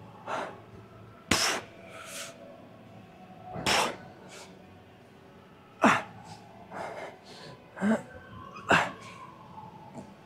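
A man breathing hard and forcefully through a heavy set of back exercise reps, with a sharp, noisy breath every second or two.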